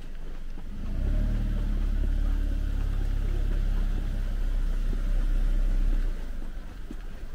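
A motor vehicle's engine running low as it passes close by on the street. It swells about a second in and falls away about six seconds in.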